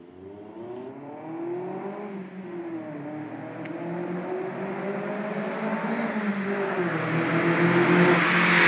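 Naturally aspirated Toyota MR2 SW20's 2.0-litre four-cylinder, breathing through an aftermarket Japspeed exhaust and induction kit, pulling through the revs: the pitch rises and dips a few times as it grows steadily louder, loudest near the end.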